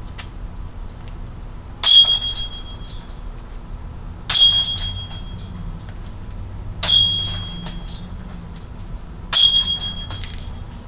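Golf discs striking the metal chains of a Gateway Bulls Eye disc golf basket on four putts, about two and a half seconds apart. Each hit is a sharp clank followed by about a second of jingling ring.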